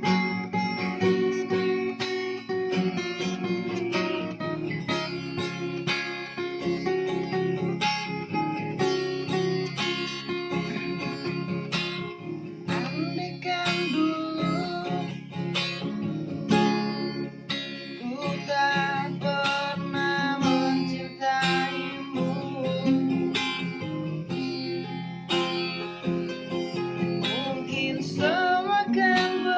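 Acoustic guitar strummed steadily in chords, accompanying a simple sung song with a singing voice at times.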